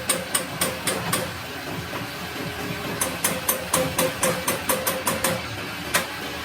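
Hammer blows on metal, about four a second, each with a short metallic ring: a run of strikes at the start, a pause of nearly two seconds, then a longer run and one last blow near the end.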